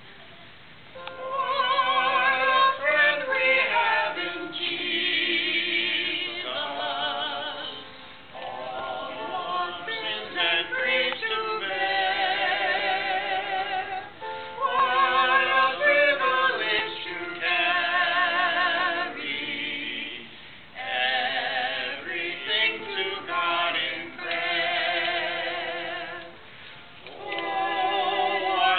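A small group of men's and women's voices singing together in harmony, starting about a second in and going on in phrases broken by short breaths.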